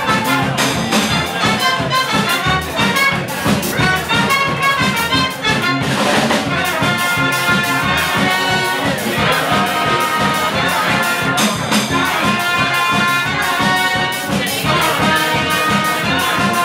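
Balkan brass band playing a hora live: trumpets and trombones carry the melody over tuba bass and a steady beat.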